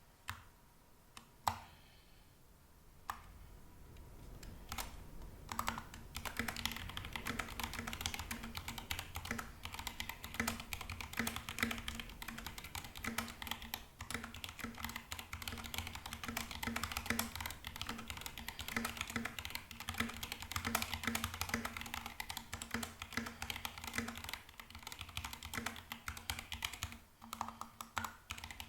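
Typing on an Epomaker GK68XS hot-swap mechanical keyboard fitted with Gateron Black linear switches. A few separate keystrokes come first, then fast, steady typing from about six seconds in.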